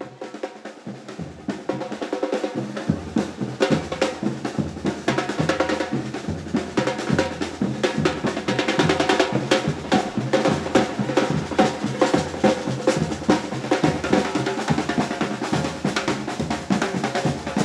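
Parade drum group playing a steady, fast rhythm on snare and bass drums. The low drums come in over the first few seconds.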